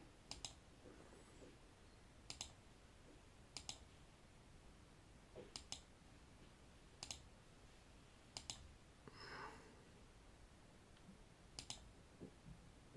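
Computer mouse button clicking: about seven separate clicks spaced a second or two apart, each a quick double tick of press and release, over a quiet room.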